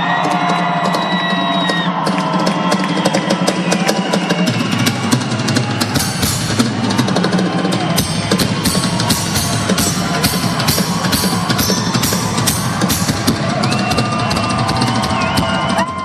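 Live rock drum kit solo: fast rolls and strokes across snare and toms over a pounding bass drum, densest in the middle.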